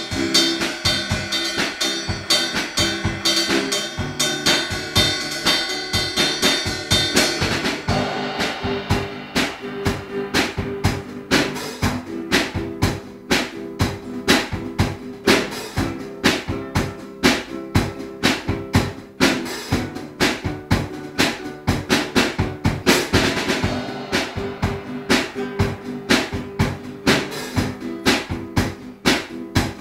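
A drum kit and an acoustic guitar playing a song together. The snare and bass drum keep a steady beat over strummed guitar chords, and cymbals ring through the first several seconds.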